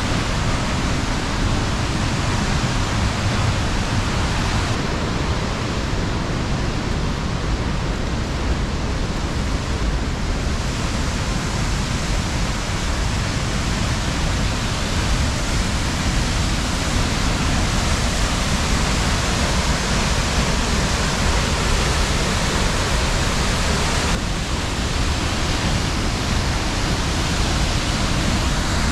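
Large waterfall: a loud, steady rush of falling water that shifts slightly in tone a few times.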